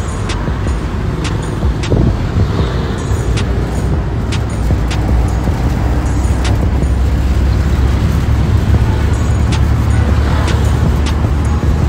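Steady low engine and road rumble of a moving vehicle, with music with a steady beat over it.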